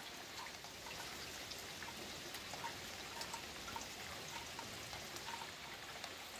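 Steady rain falling, an even hiss with many single drops ticking close by.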